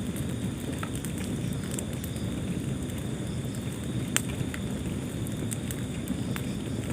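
Wood fire burning in a fireplace: a steady low rush of flame with scattered crackles and pops, one sharper pop about four seconds in.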